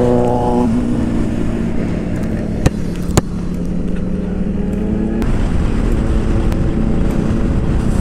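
KTM 390 Adventure's single-cylinder engine running under way with a steady note, which shifts to a new pitch about five seconds in. Two sharp clicks come about three seconds in.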